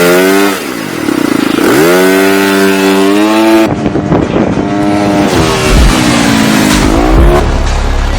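SYM DRG scooter's single-cylinder engine revving, its pitch climbing and dropping back several times as the throttle is opened and eased off.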